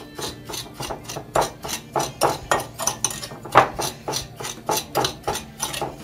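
Metal spoon grinding granulated sugar and grated lemon zest against the bottom of a glass bowl: rasping scrapes repeated about four times a second as the zest is crushed into the sugar.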